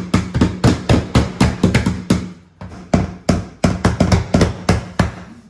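Claw hammer rapidly tapping a flooring pull bar hooked on the end of a luxury vinyl plank, driving the plank over to close its end joint: a quick run of sharp metallic taps, a brief pause about two seconds in, then a second quick run.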